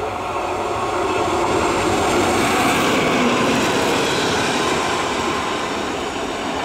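Single-coach train hauled by a WAP-5 electric locomotive passing at speed. Its wheel and rail noise swells to a peak about three seconds in, as the coach goes by, then fades as it moves away.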